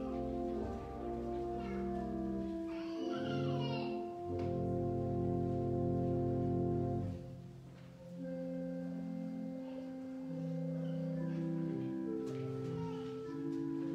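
Slow instrumental music of long held chords over a low bass note, with a brief lull about seven seconds in.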